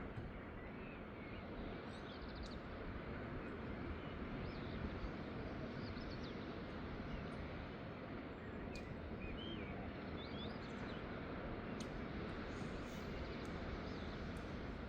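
Steady outdoor rushing noise, with small birds giving short high chirps several times over it.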